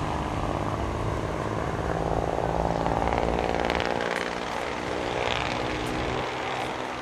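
Alsthom diesel railcars coupled in multiple approaching on the track, their engines running with a steady drone and a low rumble.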